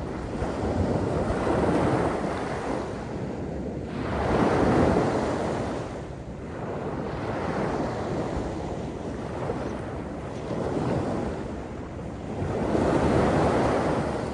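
Small waves breaking and washing up a sandy beach, each swelling and falling away about every three seconds, the loudest about five seconds in.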